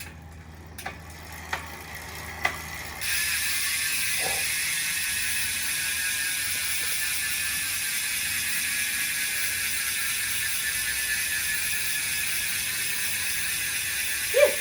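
Campagnolo Bora Ultra rear hub freehub spun freely, its pawls ratcheting. A few separate clicks come first, then from about three seconds in a dense, steady buzz that slowly eases lower as the wheel coasts. There is a single short knock near the end.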